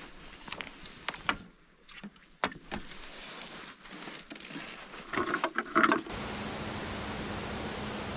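Scattered clicks, taps and rustles of hands working a fishing line and hook on a landed fish, with a louder rattling cluster about five seconds in. About six seconds in it gives way abruptly to a steady hiss with a faint low hum.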